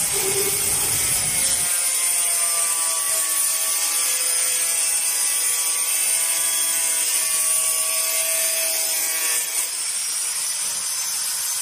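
Electric angle grinder with a cutting disc running through a fibre-cement (Hardiflex) board: a loud, steady high whine with rough cutting noise, its pitch rising slightly near the end.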